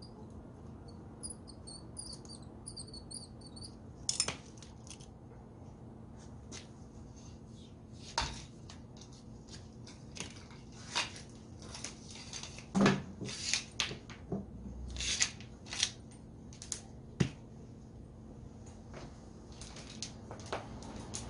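Scattered clicks, taps and knocks of small tools and parts being handled on a workbench while a hand grinder's old power cord is taken off, the loudest knocks about halfway through. A few faint bird chirps about a second to three seconds in, over a low steady hum.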